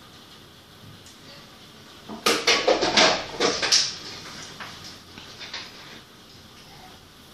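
Steady hiss of heavy rain, broken about two seconds in by a burst of loud, rapid clattering knocks lasting about two seconds, with a few weaker knocks after.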